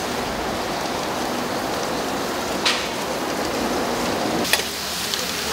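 Hot oil sizzling steadily as round doughnuts deep-fry in a pot, with two sharp clicks, one near the middle and one about two seconds later.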